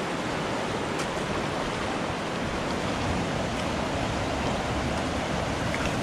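Fast, shallow mountain river rushing steadily over rocks and riffles, heard close up from the bank.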